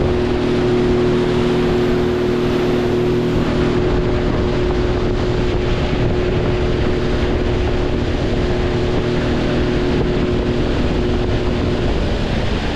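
Motorboat engine running steadily under way, with wind and water rushing over the microphone.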